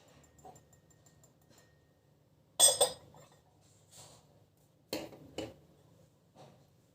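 Dishes and cutlery clinking as they are handled in a kitchen: a sharp clink a little over two and a half seconds in, two more in quick succession about five seconds in, and a few fainter knocks between.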